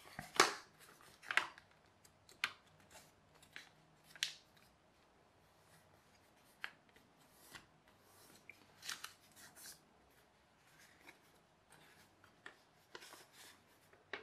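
A sheet of paper, several layers thick, being folded and creased by hand: irregular crinkles and rustles, with a cluster of louder crackles in the first couple of seconds and scattered softer ones after.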